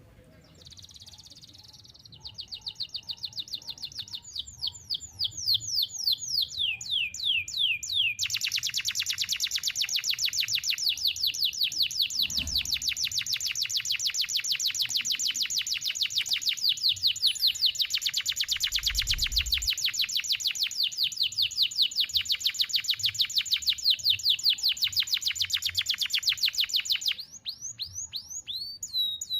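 Domestic canary singing: quick high trills and a few falling notes, then one long unbroken rolling trill held for nearly twenty seconds, which stops suddenly near the end before a few separate notes.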